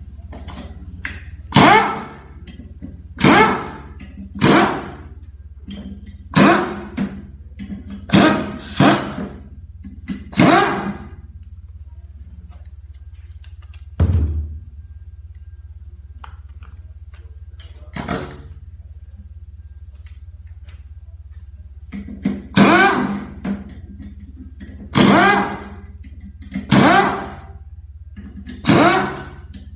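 A power tool run in about a dozen short bursts, each under a second, with a pause of several seconds midway, over a steady low hum. A single dull thump falls in the middle of the pause.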